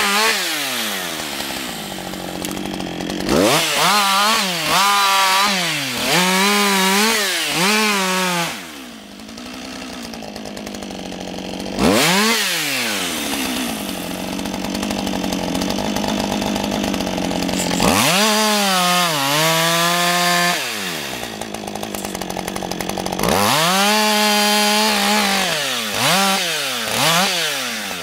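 Husqvarna 562 XP two-stroke chainsaw with an 18-inch bar cutting branches off a felled tree: the engine revs up and drops back again and again as each limb is cut. It settles into a few steadier, lower spells between cuts, the quietest about nine seconds in.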